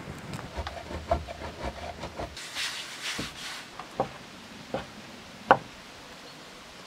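A knife chopping through rolled fresh pasta dough, with several sharp knocks about three-quarters of a second apart, the last the loudest. A short hiss comes just before them.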